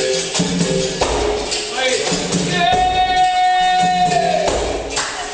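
Capoeira roda music: a pandeiro and other percussion keep a steady rhythm, and about halfway through a voice holds one long sung note.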